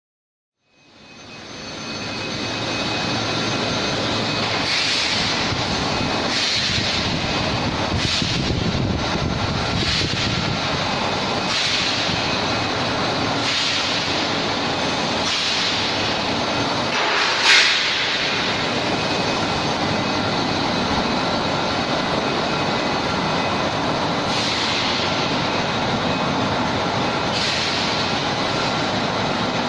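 Induction hardening line for steel rebar running: a steady machinery noise with several high, steady whining tones. Short louder bursts come every second or two, the loudest about seventeen seconds in. The noise fades in from silence about a second in.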